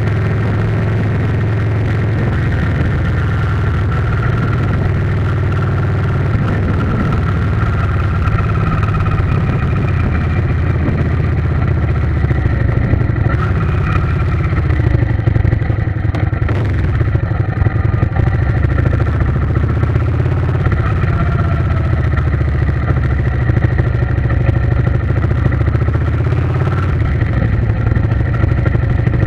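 A vehicle engine running steadily with a continuous low rumble.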